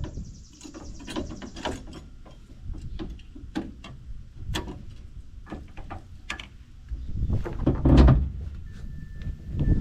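Scattered metal clicks and clanks of trailer-hitching hardware being handled, with a heavier thump about eight seconds in.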